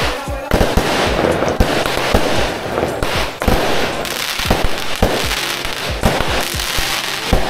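Fireworks going off: many bangs and pops in quick, irregular succession over continuous crackling.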